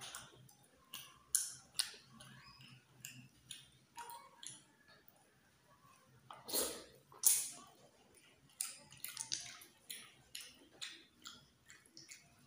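Close-miked eating of snails cooked in coconut milk: wet lip smacks, sucking and chewing, broken by short sharp clicks at irregular intervals, loudest about six and a half to seven seconds in.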